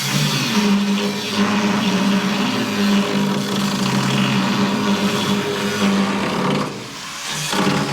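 Angle grinder running against the steel of a worn skid steer bucket, a steady motor whine over a harsh grinding hiss. It drops away briefly about seven seconds in, then picks up again.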